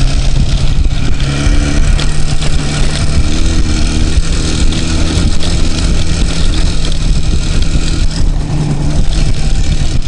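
IZh two-stroke motorcycle engine running under way on a dirt trail, its note rising and falling with the throttle.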